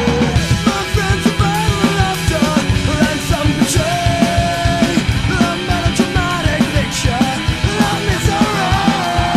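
Punk-style rock music with a fast, steady drum beat and a gliding melody line over it.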